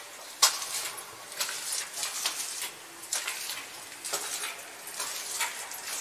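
Footsteps crunching and scraping on small loose rocks on a cave floor, with reverberation: irregular steps about two a second, the sharpest about half a second in.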